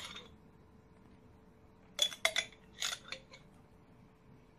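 A spoon clinking against a mixing bowl in a short run of about four knocks, starting about two seconds in, as mayonnaise is spooned in and stirred for a garlic mayo sauce.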